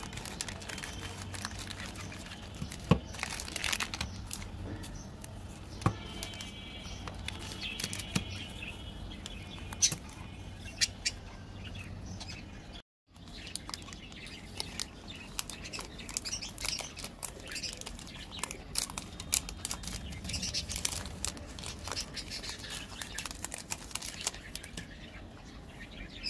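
Plastic and foil chocolate-bar wrappers crinkling and rustling in the hands, with many sharp crackles as a wrapper is handled and torn open.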